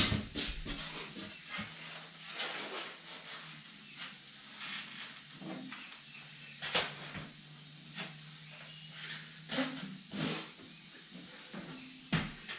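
Caulking gun squeezing out Loctite construction adhesive: scattered short clicks and squishing sounds every second or so, over a faint steady hum.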